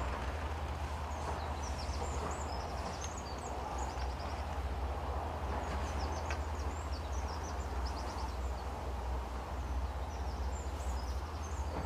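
Small birds chirping and twittering in short repeated calls over a steady low rumble of wind on the microphone.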